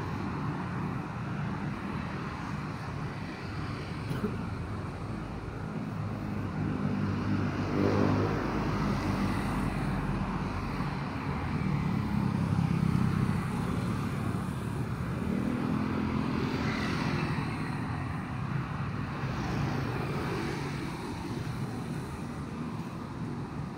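Busy city street traffic: a steady hum of motor vehicles, with engines swelling and fading as they pass about eight, twelve and sixteen seconds in.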